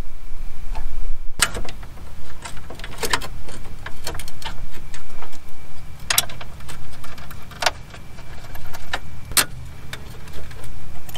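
Sharp plastic and metal clicks and clacks of a car's engine-bay cover panel and its small fittings being handled and pressed into place, about one every second or two, over a steady low rumble.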